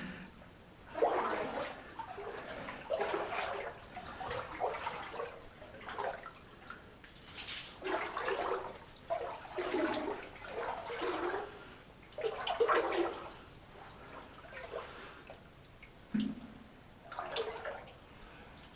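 Water sloshing and swishing as a person wades through deep standing water in a flooded mine tunnel, in repeated surges about once a second.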